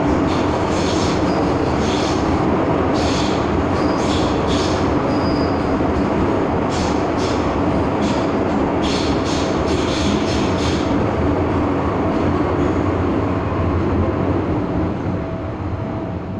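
MTR Island Line M-Train running at speed, heard from inside the car: a steady loud rumble of wheels and running gear, with irregular sharp clicks and brief wheel squeals through the first eleven seconds or so. Near the end the noise eases and a faint steady tone comes in.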